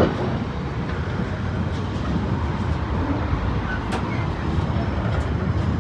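Intermodal container freight wagons rumbling and rattling past at close range, with a sharp clunk right at the start and a lighter knock about four seconds in.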